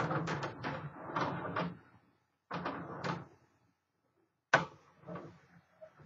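Display turntable being turned by hand with a portable typewriter on it: the turntable rumbles and rattles in spurts as it spins, with a sharp knock about four and a half seconds in.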